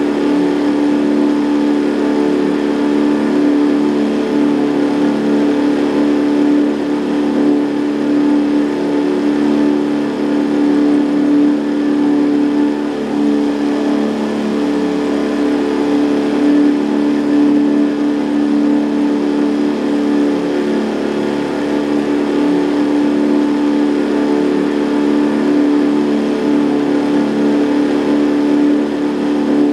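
Boat's outboard motor running at a steady speed, an even engine drone with a constant hiss of noise above it.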